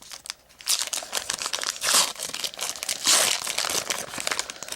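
Trading-card pack wrapper crinkling as it is handled and opened: a run of scratchy rustles, loudest about two and three seconds in.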